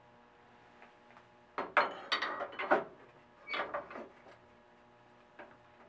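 Half-inch steel threaded rod sliding into and across the vise of a metal-cutting band saw, scraping and rattling in two bursts, then a single click near the end.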